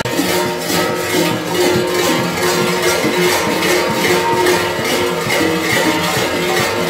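Many large metal kukeri bells (hlopki) on costume belts clanging together in a steady rhythm: a dense jangle with sustained ringing tones.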